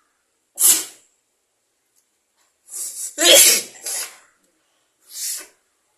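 A person sneezing. One sharp sneeze comes about half a second in, a louder run of three or four sneezing bursts follows around the middle, and another sneeze comes near the end.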